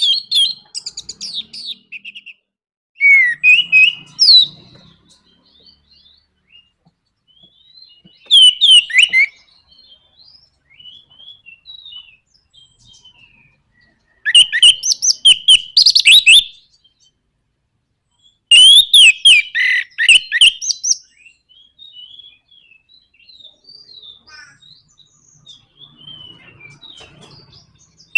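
Orange-headed thrush (anis merah) singing in the rapid, chopped 'nraktak' style: five loud bursts of fast, high, sliding notes a few seconds apart, with softer twittering between them.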